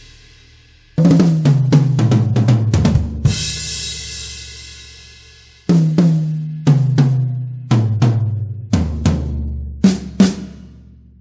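2007 Pearl Vision VSX birch drum kit played in two fills: strokes stepping down in pitch around the toms, each ending on a cymbal crash that rings out. A third fill starts right at the end.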